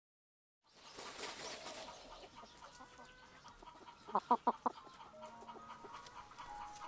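Hens clucking, with a quick run of four loud clucks about four seconds in, over soft rustling in dry straw and dirt where the hens are dust-bathing.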